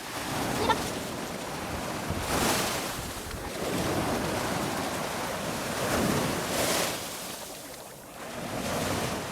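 Sea waves washing onto a beach, with the surf swelling twice, about two and a half seconds in and again about four seconds later.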